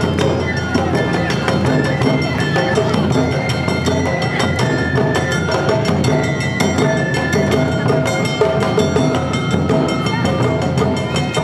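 Awa odori festival band (narimono) playing: a dense, rapid clatter of kane hand-gong strikes over taiko drums, with a shinobue bamboo flute holding notes of the melody above.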